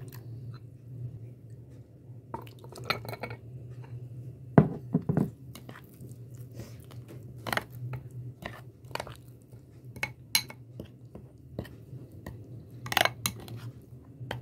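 A steel spoon stirring semolina soaked in milk in a glass bowl, with irregular clinks and scrapes of the spoon against the glass. The loudest knocks come about four and a half seconds in, over a steady low hum.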